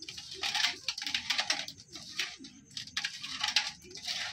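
Hands mixing cut fish pieces with salt and lemon in a stainless steel bowl: irregular wet squelching and clicking of the pieces against the metal.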